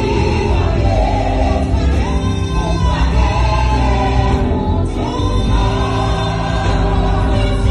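A gospel vocal group singing in harmony, women's voices leading, with a live band and a heavy bass line, amplified through stage speakers. The sung lines are long, held notes that slide between pitches.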